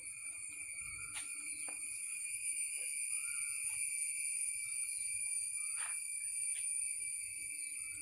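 Steady high-pitched insect drone, with a few short, sharp bird chirps over it.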